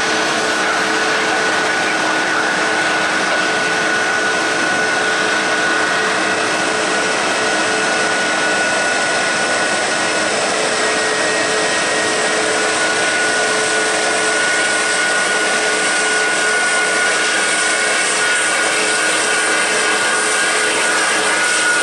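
Jet airliner turbofan engines running steadily: an even rushing noise with a steady high whine and a lower hum, holding the same level throughout.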